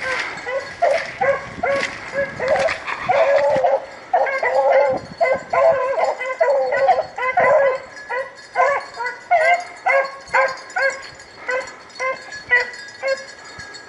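A pack of rabbit-hunting hounds baying in chase, many short calls from several dogs overlapping: the dogs are running a rabbit's scent.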